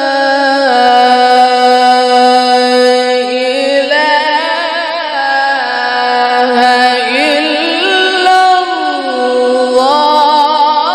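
A man reciting the Quran in melodic tajweed style into a microphone, drawing out long, wavering held notes that shift pitch every few seconds.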